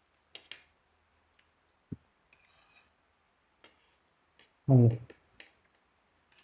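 Scattered light clicks and taps of spoons against plates and bowls while people eat. A short vocal sound, a brief hum or word, comes about three quarters of the way through and is the loudest thing.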